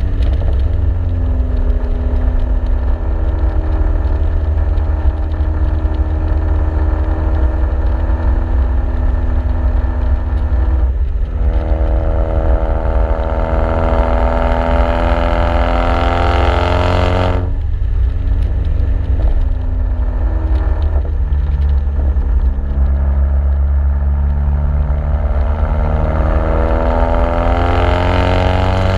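Exhaust note of a 2009 Chevy Cobalt SS's turbocharged 2.0-litre four-cylinder, running through a TurboXS RFL cat-back exhaust and catless downpipe and heard from outside the moving car. Engine speed falls, climbs and falls again as the driver works the throttle, with brief breaks about 11 and 17 seconds in, over a steady deep rumble.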